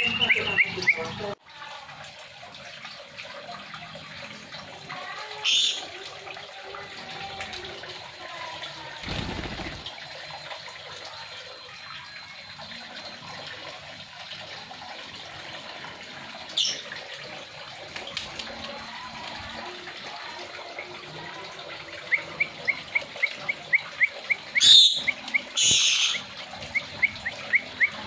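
Pet parrots calling: four short, shrill screeches spread through, and from about two-thirds of the way a fast run of short chirps, about three a second, over a steady faint hiss.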